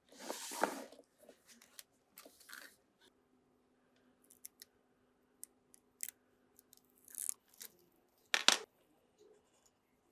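Small parts being handled on a workbench: scattered light clicks, taps and rustles, with a louder scraping rustle in the first second and a sharp louder one about eight and a half seconds in.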